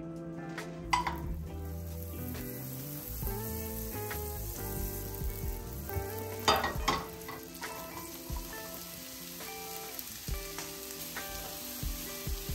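Food sizzling in a hot frying pan, with a few sharp utensil knocks against the pan, once about a second in and again about halfway through, as it is stirred.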